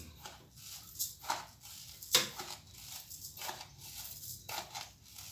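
Sugar being poured from a plastic bag into a popcorn machine's pot: the bag crinkling and rustling, with scattered small clicks and a sharper tap a little over two seconds in.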